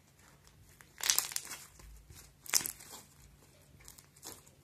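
Homemade glue slime being squeezed and stretched in the hands, giving irregular sticky crackles and pops. Louder bursts come about a second in and again about halfway through.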